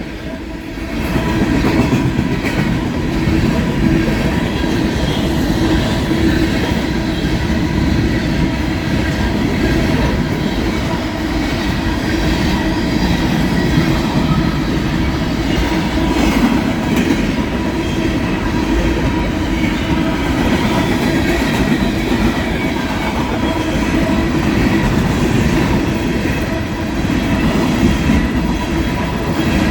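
Freight train passing close at speed: a loud, steady rumble of cars and wheels running on the rails, building up about a second in.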